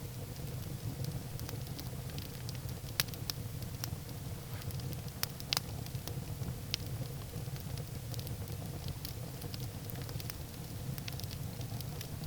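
Wood fire burning in a fireplace: a steady low rumble of flames with irregular sharp crackles and pops from the burning firewood. A few louder pops come about three and five and a half seconds in.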